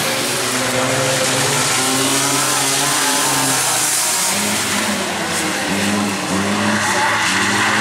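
Bilcross race cars' engines revving hard. Their pitch climbs and drops back in steps as they shift through the gears, over a steady hiss.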